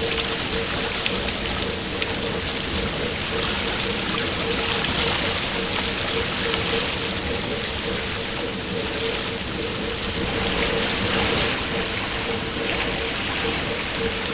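Paddle wheels of a steam paddle steamer churning the river water: a steady rushing, splashing wash with a steady hum under it.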